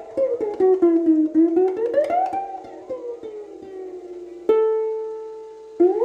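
Background music on plucked strings, with notes sliding up and down in pitch. About four and a half seconds in, a single plucked note rings out and fades away.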